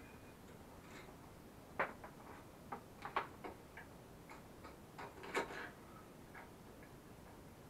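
Irregular small clicks and taps of hands handling an LED front light and its wiring while fitting them to a children's quad bike, with two sharper knocks about two seconds and five and a half seconds in.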